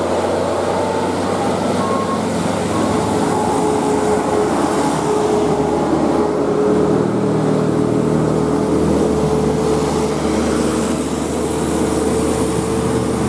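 Heavy vehicle traffic close by: a large bus's diesel engine running steadily over road and tyre noise, with a steady mid-pitched tone above the rumble.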